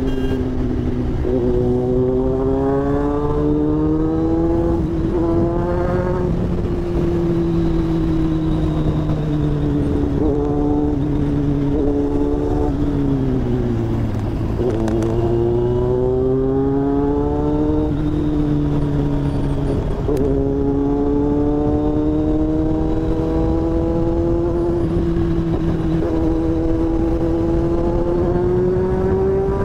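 Motorcycle engine under way, its pitch climbing as it pulls and dropping abruptly at each upshift, about three times. Around the middle it winds down to its lowest pitch as the bike slows, then builds again.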